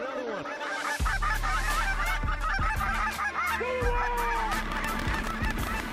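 A flock of geese honking and calling, many overlapping calls at once. A low rumble starts abruptly about a second in.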